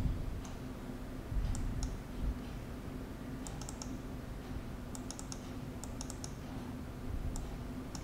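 Faint clicks of a computer mouse and keyboard in small scattered groups, over a steady low hum.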